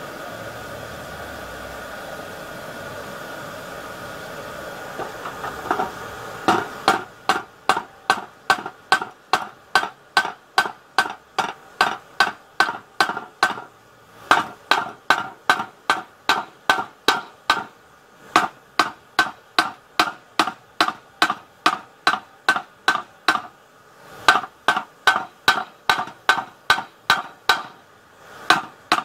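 Forging hammer striking hot knife steel on a homemade anvil: ringing metal-on-metal blows about three a second, beginning a few seconds in and coming in runs with brief pauses.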